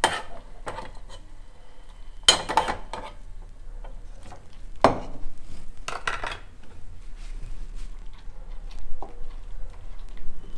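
Metal spoon clinking and scraping against an aluminium pot and a wooden mortar while ladling boiled tomatoes across, a few sharp knocks spaced a second or more apart.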